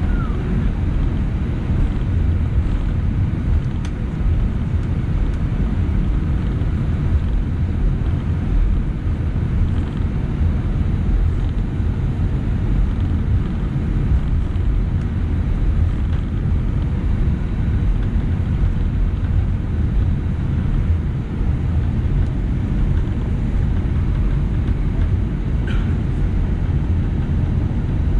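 Cabin noise of an Airbus A319-111 taxiing: a steady low rumble from its CFM56 engines at taxi power and the airframe rolling along the taxiway.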